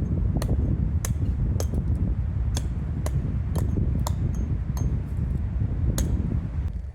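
Strong wind buffeting the microphone with a heavy rumble, broken by sharp clicks or ticks about twice a second.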